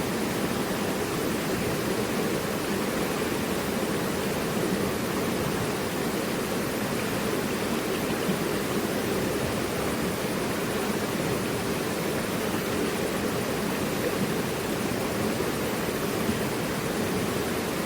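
Mountain river rushing over rocks: a steady, even roar of flowing water without a break.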